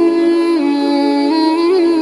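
Background music: a single held melodic line with a sung or hummed quality, stepping between sustained notes with small ornaments.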